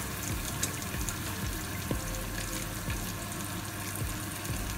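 Ribeye steak frying in melted herb butter on a ridged grill pan: a steady sizzle with frequent small crackling pops.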